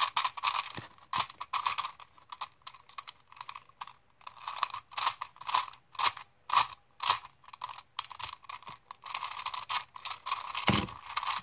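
Plastic Gear Cube twisty puzzle being turned by hand, its gears clacking in quick, irregular runs of sharp clicks; really loud when turned.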